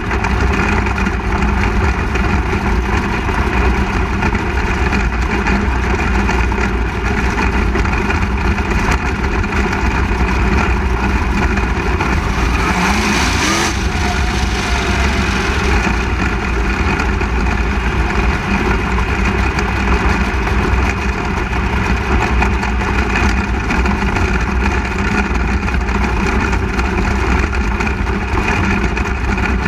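A 360 sprint car's 360-cubic-inch V8 engine running hard and steady as the car laps a dirt oval, heard from an onboard camera. About halfway through there is a short rise in pitch.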